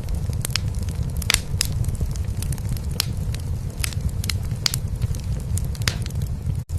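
A cat purring in a steady low rumble over a wood fire crackling in a fireplace, with frequent sharp pops and snaps. The sound cuts out for an instant near the end.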